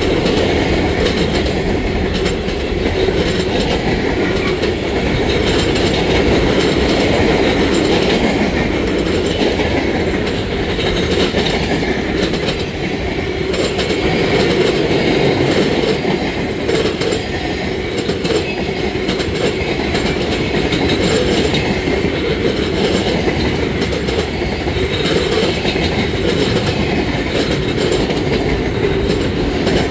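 Freight cars of a work train rolling past close by, steel wheels running over the rails with a loud, steady rumble and a continuous clickety-clack at the rail joints.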